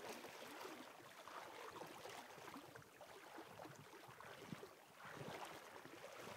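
Faint, irregular swishing and splashing of shallow river water as someone wades across on foot.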